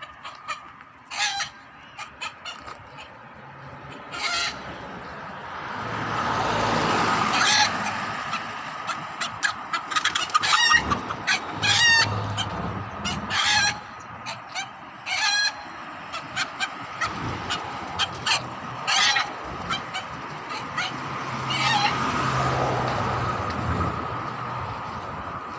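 Hens clucking and calling, many short, sharp notes scattered irregularly, some quick runs of notes, over a faint steady high background tone.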